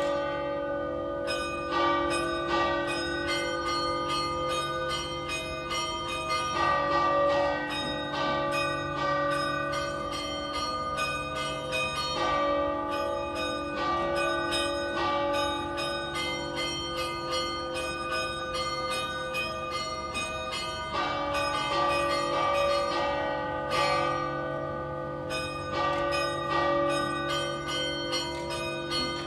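Three tower bells in a civic bell tower, a large bell cast in 1878 by Pasquale Mazzola and two smaller bells cast in 2015 by De Poli, ringing together in a festive peal. They form a set in D-flat that is not tuned to a scale. The strikes come in a steady, unbroken run and overlap, each bell's tone ringing on under the next.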